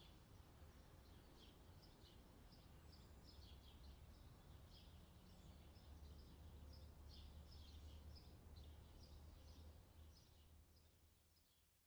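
Faint outdoor ambience: small birds chirping repeatedly over a low steady rumble, fading out near the end.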